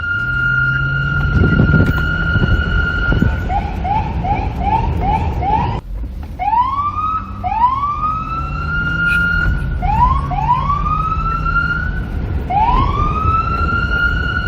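Police car siren: a steady high tone, then a quick run of short rising whoops, about two or three a second, then a brief break and several long rising wails that each climb and hold steady at the top. A low vehicle rumble runs underneath.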